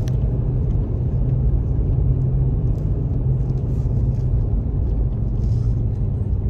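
Steady low rumble of a vehicle driving, heard from inside the cabin: road and engine drone with a constant low hum.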